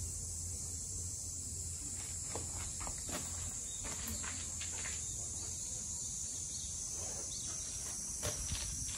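A steady high-pitched buzz over a low hum, with a few faint clicks partway through and again near the end.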